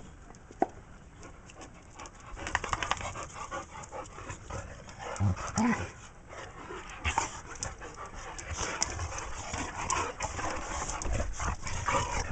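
Two boxer dogs play-fighting: heavy panting and breathing as they wrestle, with two short low vocal sounds a little past five seconds in.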